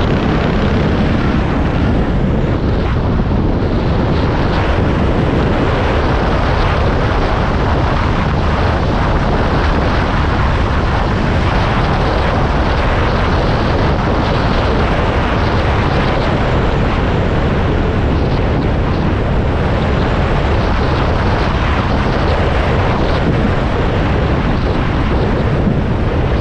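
A vehicle's engine running steadily under a heavy, continuous rumble and rush of noise, with no marked changes in level.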